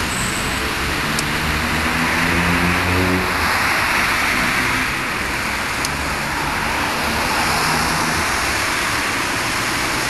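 Ganz tram running, with a steady rolling noise; a humming motor tone comes in about a second in and again around six seconds, and there are two faint clicks.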